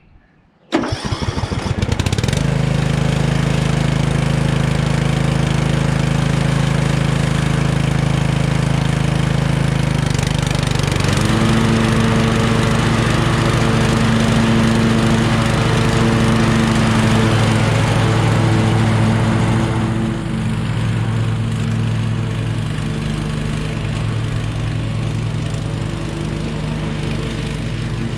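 A 13.5 hp MTD Yard Machine riding lawn mower's engine starting up about a second in and then running steadily. Its note changes about ten seconds in and drops slightly in level near twenty seconds in.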